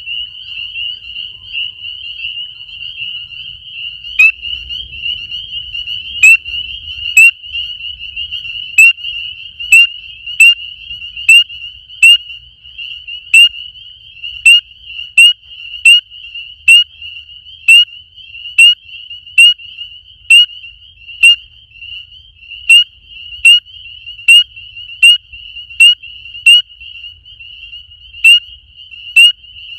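Spring peeper calling at close range: loud, ear-piercing single high peeps, a little under one a second, starting a few seconds in. Behind them runs a steady high-pitched din from a chorus of many more peepers.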